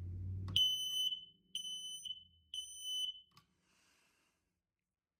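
Kidde i9040 ionization smoke alarm sounding under its test button: three high-pitched beeps about a second apart, in the temporal-three evacuation pattern, then it stops.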